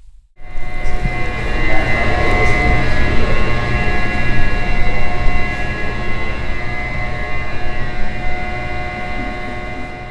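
A machine starts abruptly and runs steadily, a low rumble under a whine of several steady tones, easing off slowly near the end.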